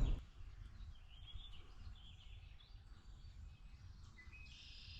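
Faint birdsong: several short chirping calls over a low, steady outdoor rumble.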